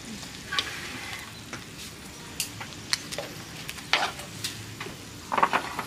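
Food sizzling in a frying pan, with scattered clicks and scrapes of a utensil against the pan and a short clatter near the end.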